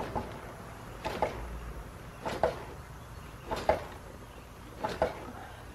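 A pit bike's rear suspension is pushed down by hand over and over, making a short noise with each stroke, about one stroke every 1.2 seconds. The freshly rebuilt rear shock, charged to only 4 bar, now damps somewhat.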